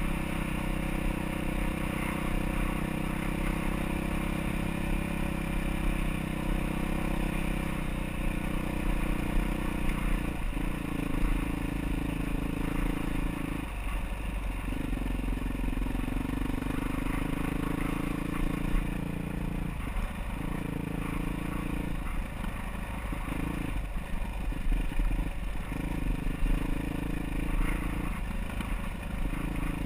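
Trail motorcycle engine running under steady throttle, easing off briefly several times in the second half.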